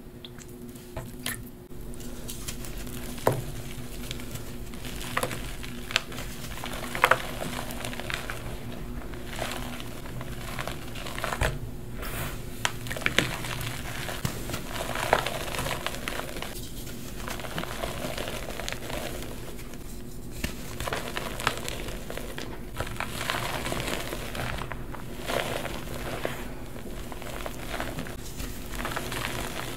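Baked hydrophobic chalk pieces being crushed and crumbled into powder by hand: continuous dry crunching and crumbling, broken by irregular sharp cracks as pieces snap.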